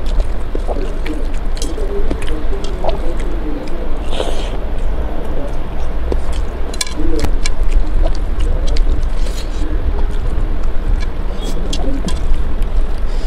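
Close-miked eating by hand: fingers squishing and mixing rice with curry on a steel plate, with wet mouth clicks and smacks from chewing. A steady low rumble sits underneath.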